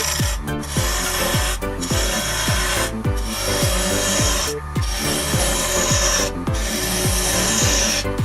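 A gouge cutting wet sycamore on a wood lathe: a steady hissing scrape that breaks off for a moment every second or so. Under it runs electronic background music with a steady kick-drum beat.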